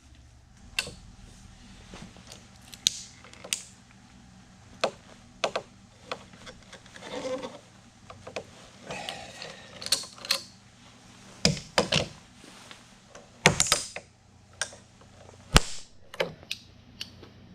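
A ratchet tie-down strap being fed around a stack of lumber slabs and cranked tight: irregular clicks, rattles and knocks from the buckle and strap, with a few short scrapes.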